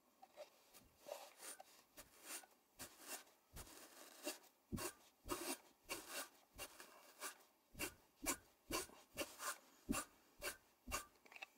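Flax fibres being drawn through the steel pins of a flax hackle: a run of short, scratchy swishes, about two a second, as the strick is combed. This is hackling, the combing step in which the short tow catches in the pins and the long line fibres stay in the hand.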